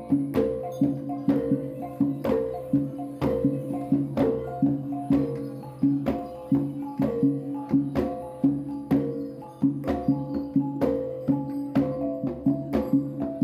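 Background music: a rhythmic tune of short struck notes over a steady percussion beat.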